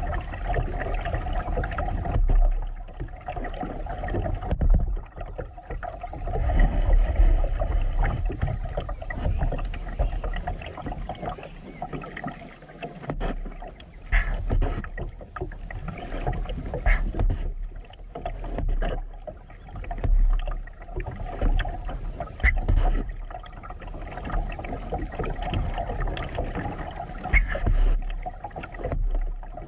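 Water sloshing and rumbling against the plastic hull of a kayak moving down a creek, swelling and easing every couple of seconds, with a few short sharp knocks.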